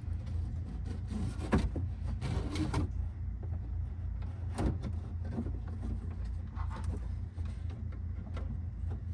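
A few short scraping and knocking handling sounds over a steady low rumble.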